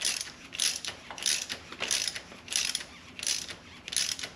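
Hand ratchet clicking in short bursts on each back-swing, about one and a half a second and seven in all, stopping near the end. It is turning a Time-Sert tap that cuts new head bolt threads in the aluminium block of a BMW M54 engine.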